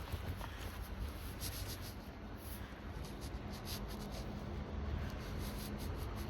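Hydraulic car lift lowering, its lubricated piston sliding with light scratchy rubbing sounds over a low steady hum.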